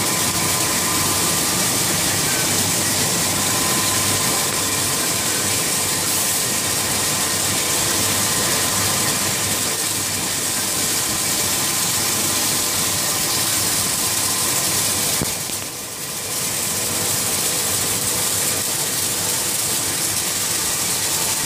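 Codimag Viva 340 label printing press running, a steady machine hiss and hum with faint steady whine tones from its rollers and moving web of labels. The sound drops briefly about three-quarters of the way through, then returns to the same level.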